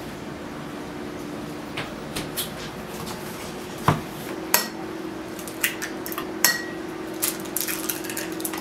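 Eggs being cracked into a drinking glass on a wooden table: about a dozen sharp clinks and knocks of glass and shell, a few ringing briefly, the loudest about four seconds in, over a steady low hum.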